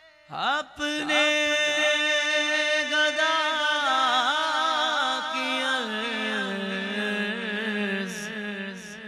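A man singing a naat into a microphone. He sets in a moment after the start and holds one long, wavering melodic line that sinks lower in pitch near the end.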